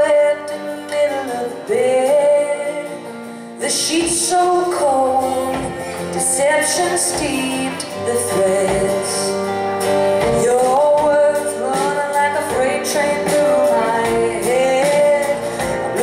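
Live rock band with a woman singing lead over electric and acoustic guitars, electric bass and drums. The music drops a little in level, then comes back in with a loud cymbal crash about four seconds in.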